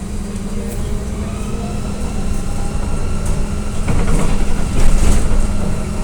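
Interior running noise of an AKSM-321 trolleybus in motion: a steady electric hum with a faint whine from the traction drive. A louder rattling, noisy stretch comes about four seconds in and lasts over a second.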